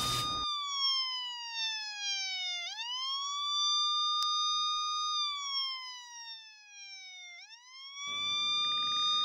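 Police siren wailing: each sweep rises quickly, holds, then slides slowly down, repeating about every four to five seconds. A loud electric buzz, the taser's zap, cuts off in the first half-second, and a hiss of street noise comes in near the end.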